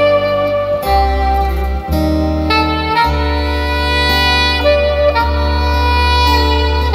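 Instrumental music played through a pair of Dantax Opus 3 bookshelf speakers with a 5-inch bass driver and soft-dome tweeter: a sustained melodic lead over deep held bass notes that change every second or two.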